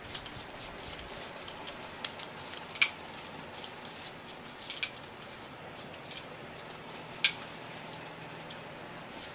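Dogs moving about: scattered sharp clicks and taps, the two loudest a little under three seconds in and a little after seven seconds in.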